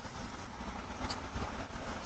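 Steady outdoor background noise with a low rumble, heard through a doorbell camera's microphone, with a faint tap about a second in.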